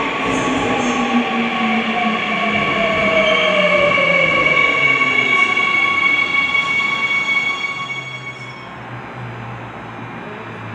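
Seoul Line 2 subway train pulling in and braking: its motor whine glides down in pitch, with steady high-pitched wheel and brake squeal above it. The sound eases off about eight seconds in as the train comes to a stop, leaving a low steady hum.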